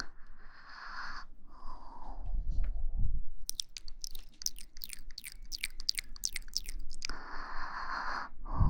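Close-miked ASMR breathing into the microphone, broken in the middle by a quick run of sharp wet mouth clicks, about four a second, before the breathing returns near the end.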